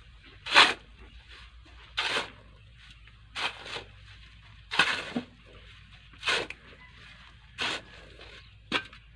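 Steel shovel scraping into a pile of sand, scooping it up: seven short scrapes, about one every second and a half.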